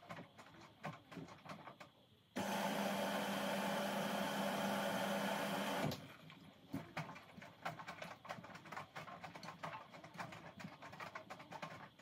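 Hoover H-Wash 350 front-loading washing machine early in a cotton 60° wash, its drum tumbling wet towels with irregular soft knocks and clicks. About two seconds in, a loud, steady mechanical run starts suddenly and lasts about three and a half seconds before cutting off.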